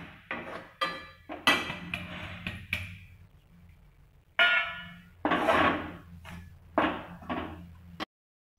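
Steel slotted spatula scraping and knocking against an aluminium kadhai as singhara flour is stirred and roasted in ghee. The knocks and scrapes come in irregular strokes, with a few louder metallic clanks about halfway through, one of them ringing briefly.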